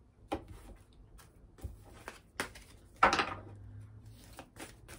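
Oracle cards being handled on a wooden table: scattered light clicks and card slides as a deck is gathered and picked up, with one louder card sound about three seconds in.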